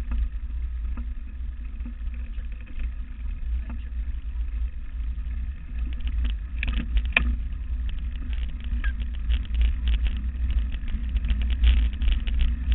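Mountain bike rolling over a bumpy dirt forest trail, heard through a bike-mounted camera: a steady low rumble of wind and vibration on the microphone, with clicks and rattles from the bike over bumps, the sharpest about seven seconds in and more frequent toward the end.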